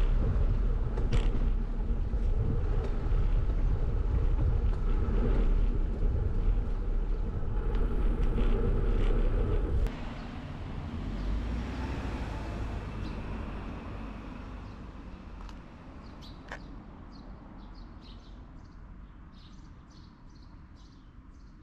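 Wind buffeting the microphone on a moving bicycle, with road noise, as a dense low rumble. It cuts off abruptly about halfway through, leaving a quieter, fading outdoor ambience with a few faint, short high chirps near the end.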